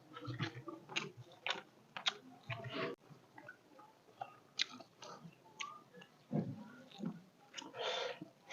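A person chewing food close to the microphone, the way mukbang is recorded: a run of irregular wet smacks and clicks, with a longer noisy mouth sound near the end.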